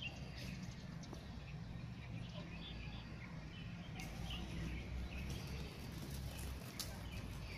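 Small birds chirping in short, scattered calls, over a steady low rumble.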